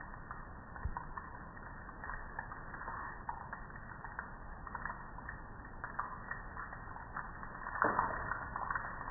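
Water splashing and dripping on a soapy metal gas grill, with scattered small ticks of drops. It grows into a louder rush near the end.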